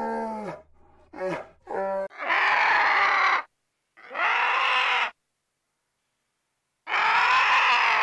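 Animal calls: a drawn-out pitched call trailing off about half a second in, two short pitched calls, then three harsh, raspy calls of about a second each with silent gaps between.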